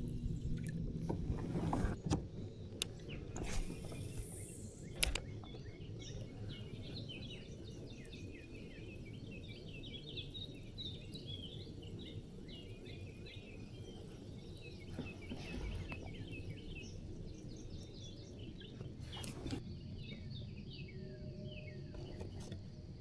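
Songbirds chirping and singing over a low, steady rumble, with a few sharp clicks and a brief hiss in the first few seconds.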